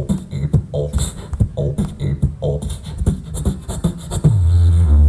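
Beatboxing into a handheld microphone: a fast rhythmic pattern of mouth-made kick, snare and hi-hat sounds. About four seconds in it switches to a loud, held deep bass drone.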